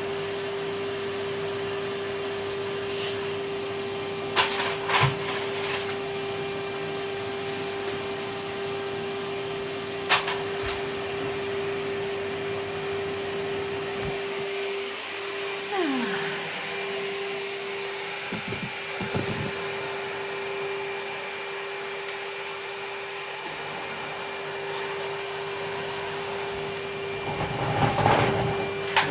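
Vacuum cleaner running steadily with a constant whine, with a few sharp knocks and bumps as the nozzle hits surfaces, more of them near the end.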